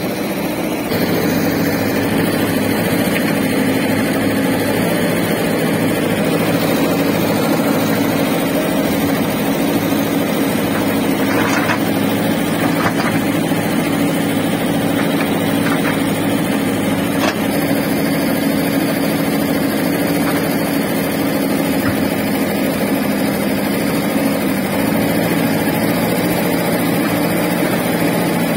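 JCB 3DX backhoe loader's diesel engine running steadily under load as its backhoe arm digs wet mud, growing louder about a second in. A few faint knocks come near the middle.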